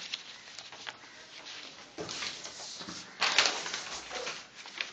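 Rustling and handling noise, with two louder bursts about two and three seconds in, during a pause in the singing.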